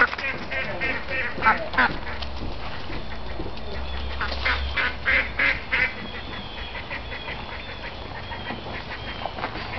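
Domestic ducks quacking in quick runs of short calls: one run at the start and a louder one a few seconds in, then only fainter, scattered quacks.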